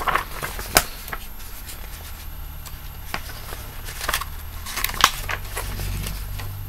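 Pages of a paperback comic book being flipped and handled: scattered paper rustling with a few sharp crackles, the loudest about five seconds in, over a steady low hum.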